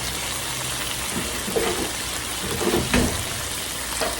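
Chicken pieces frying in a pan with margarine, sizzling steadily with a few crackles.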